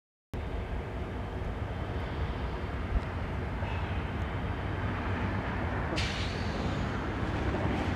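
Outdoor road ambience: a steady low rumble of distant vehicle traffic that cuts in suddenly, with a short hiss about six seconds in.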